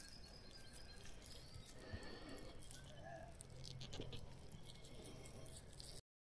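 Near silence: faint outdoor background with a few small rustles and ticks, then the sound cuts to dead silence near the end.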